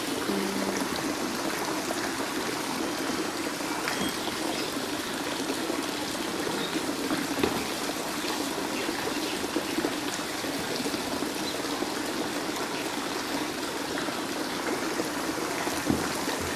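Steady trickle of running water into a pond, with a few faint ticks.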